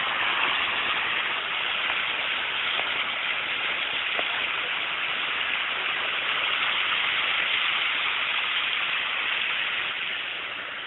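Car driving through deep flood water, its tyres throwing up a steady hissing spray of water along the side of the car; the hiss eases a little near the end.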